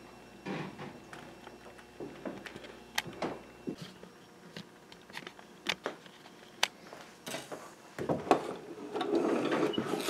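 Scattered light clicks and knocks of wooden organ parts and their metal strips being handled. From about eight seconds in, these give way to a denser stretch of rubbing and handling noise.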